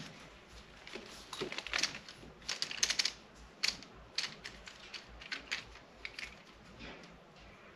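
Faint, irregular clicks and taps in small clusters: a camera tripod's head being handled and adjusted by hand.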